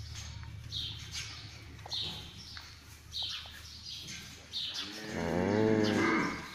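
A small bird chirping briefly about once a second, then near the end a cow's long moo that rises and falls in pitch, the loudest sound.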